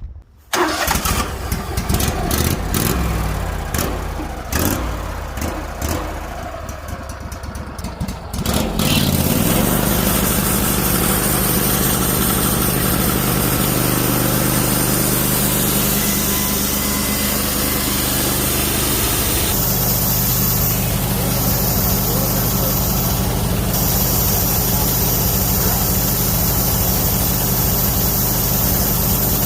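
Wood-Mizer LT15 Wide sawmill's engine: uneven and stuttering for about the first eight seconds, then settling into steady running.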